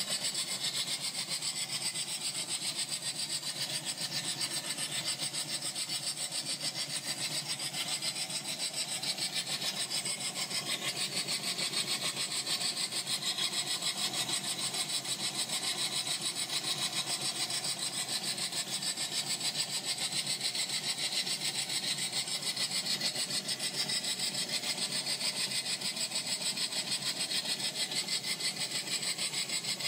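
Live-steam model Mallet locomotive running on blocks with its wheels off the rails: fast, even exhaust beats from the steam cylinders over a steady hiss.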